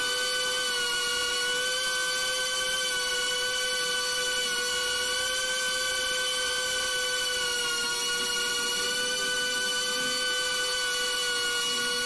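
Whine of a Beta95X V3 cinewhoop FPV drone's motors and 2.5-inch propellers in flight: a steady, many-toned whine whose pitch wavers slightly as the throttle shifts.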